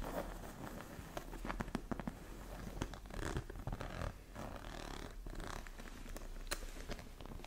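Fingernails scratching, rubbing and tapping on a quilted leather-look backpack, with light clicks as the fingers work its metal front zipper, in an irregular close-up patter of small clicks and rubs.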